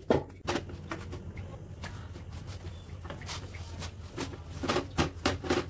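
Irregular clicks and knocks of rotis being made by hand, the rolling pin and dough working on the board, with more of them near the end, over a steady low hum.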